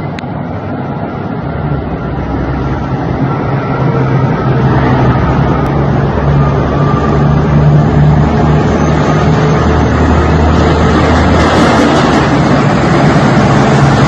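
A heavy vehicle's engine running with a low, steady hum under road noise, growing louder over the first several seconds and then holding steady.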